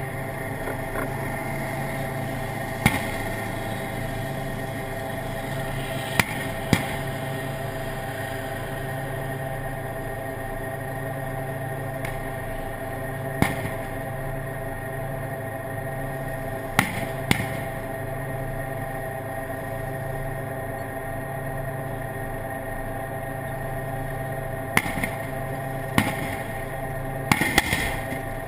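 Steady drone of the tank's own engine running, picked up by a camera mounted on its turret, with a dozen or so sharp cracks of gunfire scattered throughout, some in pairs and a quick cluster near the end.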